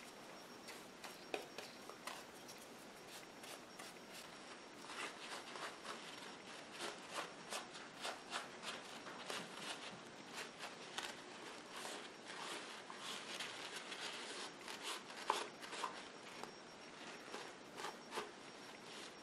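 Faint, scratchy rubbing strokes of a paintbrush, then a wadded paper towel, working glaze over the hard, gesso-textured surface of a paper mache mask. The strokes come quick and close together from a few seconds in.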